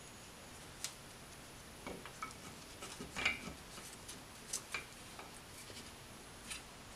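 A handful of faint, scattered clicks and clinks of metal parts being handled: a differential carrier and limited-slip kit pieces set down and turned on a workbench, the loudest clink about three seconds in.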